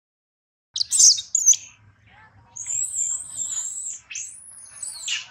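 Newborn macaque crying: a series of high-pitched, wavering squeals starting about a second in, then one long high squeal and a call that rises and falls near the end.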